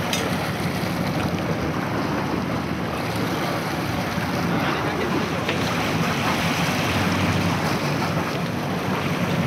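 Steady rush of wind on the microphone and sea water against a sport-fishing boat, with a low engine hum underneath.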